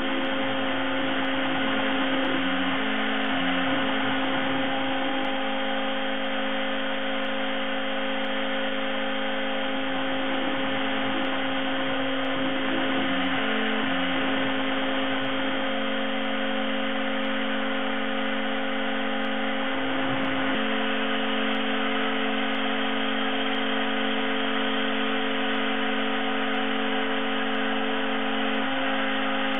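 Small desktop CNC mill's spindle running with a steady whining hum as a thin ball-nose cutter mills a rotating foam block. A rougher, lower cutting noise comes and goes a few times as the cutter moves through the material.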